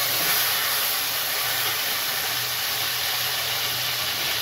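Marinated prawns sizzling in hot oil in a steel pot: a loud, steady hiss.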